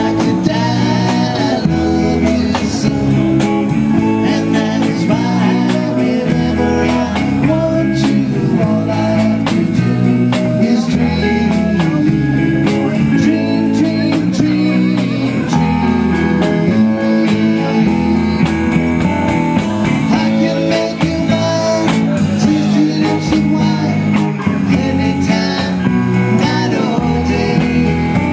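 A band playing a rock song with guitar and singing.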